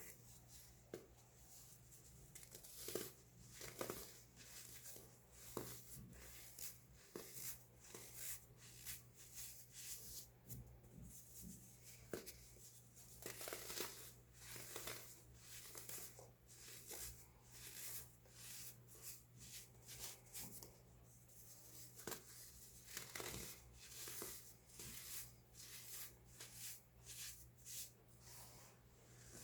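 Baking soda being crushed and crumbled: a continuous run of quiet, short crackling crunches, a few every second.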